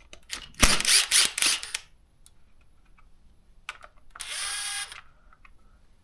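Power drill/driver spinning out Torx screws in short runs: a loud burst about half a second in and a shorter, steadier whine near four seconds, with small clicks between.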